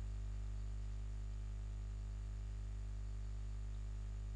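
Steady low electrical hum with faint hiss, unchanging throughout: mains hum picked up in the recording chain.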